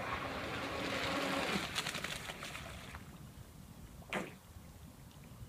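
Pro Boat Blackjack 24 electric RC catamaran's motor whining at a steady pitch, cutting off about a second and a half in, with water hissing and washing from its wake. A short sharp burst of sound about four seconds in.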